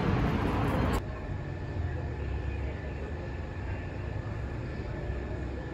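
Loud steady traffic or vehicle noise that cuts off abruptly about a second in, giving way to a quieter steady low rumble with a faint, thin steady whine.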